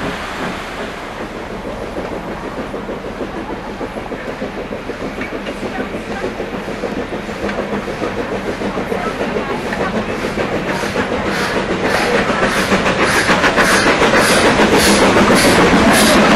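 Steam locomotive, a BR Standard Class 4MT 2-6-0, working along the line with a steady rhythm of exhaust beats. The sound grows steadily louder as it approaches.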